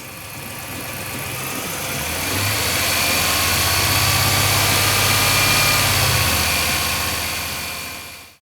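A 2011 Ram 1500's 5.7-litre Hemi V8 running at idle, with its pitch lifting slightly about two seconds in and easing back after about six seconds. This is the engine after the idler pulley was replaced, which the owner says cured the belt-drive whine.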